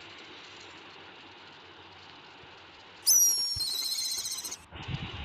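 Black kite call played back pitch-shifted very high: a shrill whistled call, a quick upward sweep followed by a wavering trill, about a second and a half long and starting about three seconds in, after faint hiss.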